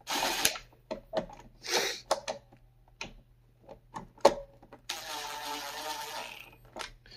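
Cordless drill-driver driving screws into the plastic underside of a Roomba robot vacuum: a few short motor runs near the start, clicks as the bit is set on the screws, then a steadier run of about a second and a half near the end.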